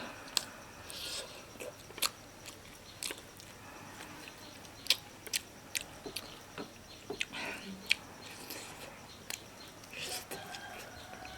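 Someone biting and chewing food, with irregular sharp crunches and clicks.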